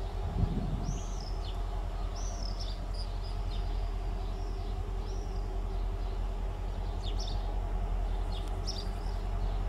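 Small birds chirping in short arched calls over a steady low rumble and hum, with one brief low thump about half a second in.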